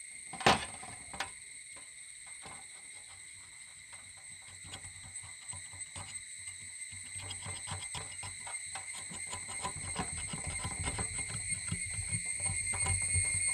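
A steel cleaver knocks sharply on a steel tray about half a second in, and again more lightly a moment later; then comes light ticking and scraping as the cleaver blade pushes chicken wing meat down along the bone, getting busier and louder toward the end. A steady high insect drone sounds behind it.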